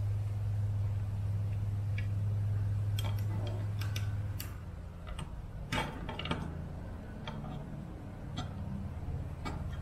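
Light clicks and ticks of a small hex screwdriver working the motor bolts on a 2-inch cinewhoop drone. A steady low hum runs under them and stops about halfway through.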